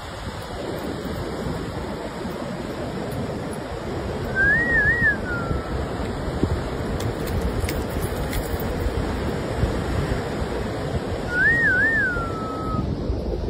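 Ocean surf breaking, with wind buffeting the microphone. Twice, a short whistle with two quick rises that then slides down in pitch.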